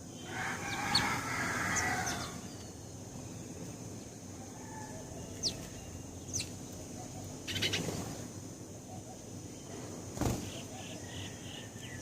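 House sparrows chirping in short, sharp, separate calls, with a louder two-second flurry near the start and a quick run of repeated notes near the end. A single sharp knock sounds about ten seconds in.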